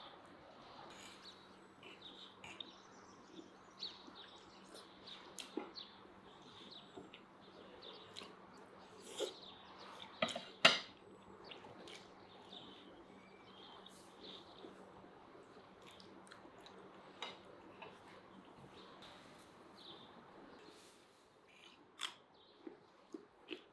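Eating at a table: scattered clicks and clinks of a fork on plates, the loudest a sharp clink about halfway through, with small birds chirping over a faint steady hum.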